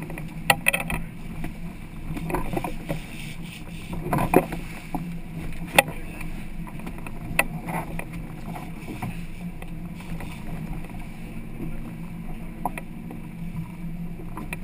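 A sportfishing boat's engine running with a steady low hum, with a few sharp knocks and clicks of gear on deck.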